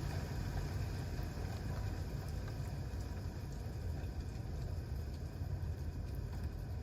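Wood campfire burning, with a few faint crackles and pops over a steady low rumble.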